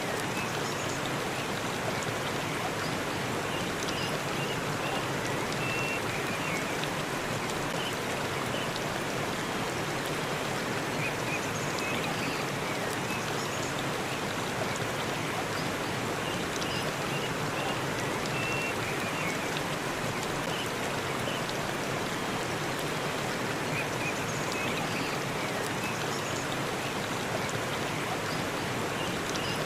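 Waterfall: the steady rush of falling water, with short high chirps now and then.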